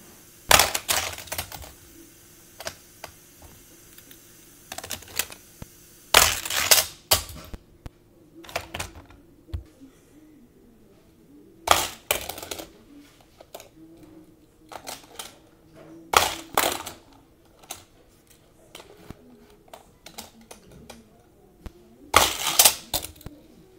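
Die-cast Hot Wheels cars clattering on plastic track: five repeated launch attempts, each a loud sharp rattle of the metal car running the track and crashing, spaced about every five seconds. Small plastic clicks come in between as the launcher is reset and a car is set in place.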